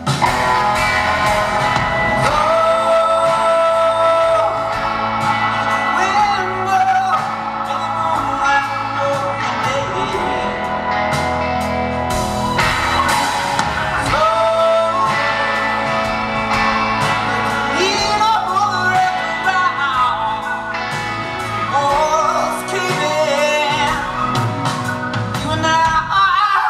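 Live rock band playing amplified in a large concert hall, heard from the audience, with melodic lead lines running over the full band.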